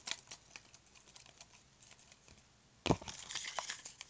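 Paper slips rustling and crinkling as a hand stirs them around in a small plastic tub, with a louder thump about three seconds in.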